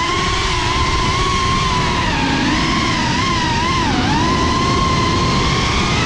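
Cinelog 35 cinewhoop FPV drone's brushless motors whining in flight: a steady buzzing whine whose pitch wavers with the throttle and dips sharply about four seconds in, over a rough low rumble.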